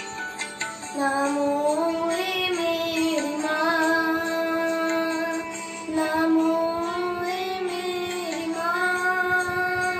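A boy singing a Hindi Marian hymn solo, his voice coming in about a second in after a few short notes of music, then holding long, gently wavering notes.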